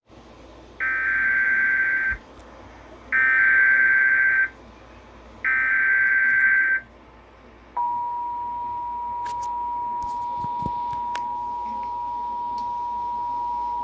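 Emergency Alert System tones: three bursts of warbling SAME header data, each a little over a second long. About eight seconds in, the steady two-tone EAS attention signal starts and holds; together they open a broadcast severe thunderstorm warning.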